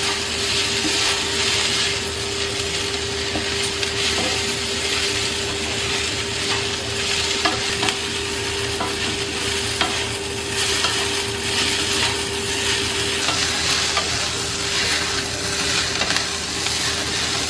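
Chowmein noodles and vegetables sizzling steadily in a kadhai over a high flame as they are stir-fried, with a spatula clicking and scraping against the pan now and then.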